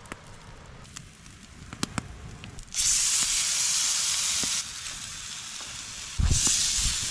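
Food frying in a hot pan: a few sharp clicks, then a loud sizzle that starts suddenly about three seconds in. The sizzle eases a little before five seconds and flares again with a low thump just after six seconds.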